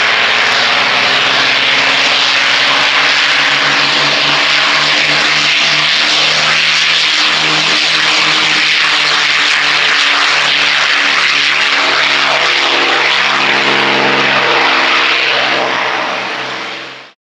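North American P-51D Mustang's Packard Merlin V-12 engine running at takeoff power on the takeoff roll, the propeller-driven engine note shifting in pitch about halfway through as it rolls past. The sound fades out quickly near the end.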